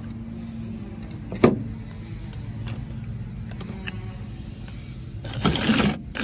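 Milwaukee Hackzall one-handed cordless reciprocating saw with a metal-cutting blade, running briefly near the end as it cuts into a plastic bracket piece clamped in a vise. A single sharp knock comes about a second and a half in, over a steady low hum.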